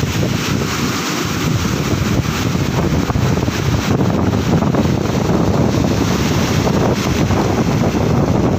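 Rough storm surf breaking and washing up the sand, with strong wind buffeting the microphone.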